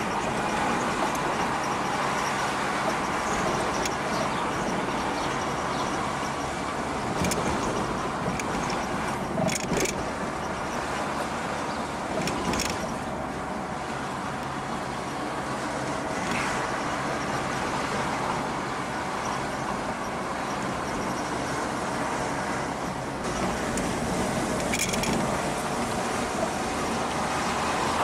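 Car driving slowly along a narrow road, its engine and tyre noise heard from inside the cabin, with a few brief knocks along the way.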